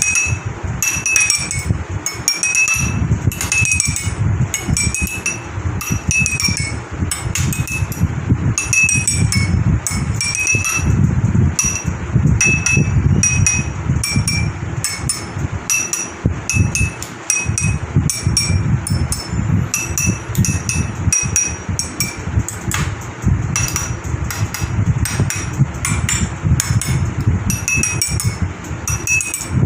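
Water-filled glasses struck one after another, giving many quick ringing clinks, several a second.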